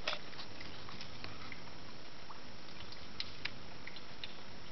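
Steady rain during a thunderstorm, with scattered sharp drips ticking through it. No thunder is heard.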